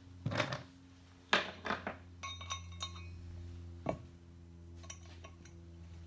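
Metal beam connector bracket being picked up and handled against a wooden beam: a few sharp knocks and a quick run of short ringing metallic clinks, over a steady low hum.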